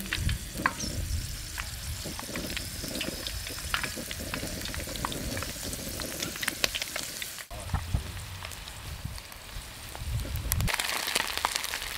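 Hot oil in a wok sizzling and crackling with many sharp pops as potato-starch-coated fish fins and tails are dropped in and deep-fry. The sizzle grows louder near the end.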